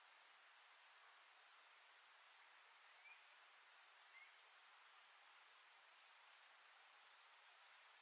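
Faint, steady insect chorus with a high, unbroken buzz over a soft hiss; a couple of tiny rising chirps sound about three and four seconds in.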